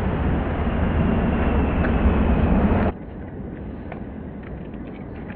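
Outdoor background noise: a steady low rumble and hiss, then a sudden drop about three seconds in to a quieter hiss with a few faint clicks.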